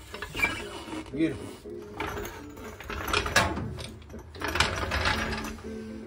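Steel 3-ton low-profile floor jack being lowered and rolled out from under the car on concrete: metallic rattling and clanking in about four separate bursts.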